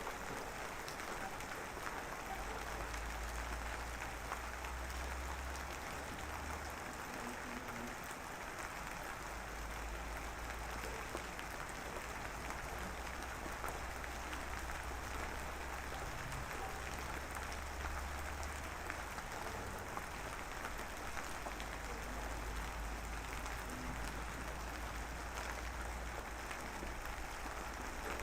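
Light drizzle falling steadily, an even pattering hiss made of many fine drop ticks. A low rumble underneath comes and goes in long stretches.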